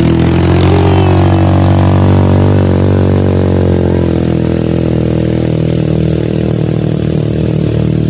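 ATV (quad bike) engine running close by. It revs slightly about two to three seconds in, then runs steadily and eases a little toward the end.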